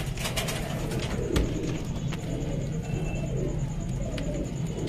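Domestic pigeons cooing, low and continuous, with a few sharp clicks near the start and at about a second and a half.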